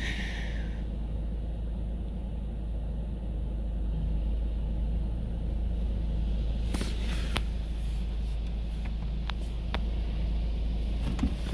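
Steady low rumble of a Ryko Radius HT touchless car wash, heard from inside the car's closed cabin. A few sharp ticks of water striking the car come about seven seconds in and again near the end.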